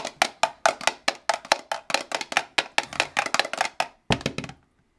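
A many-sided die rolling and clattering on a hard surface: a quick run of sharp clicks, about six or seven a second, that stops about four and a half seconds in as the die comes to rest.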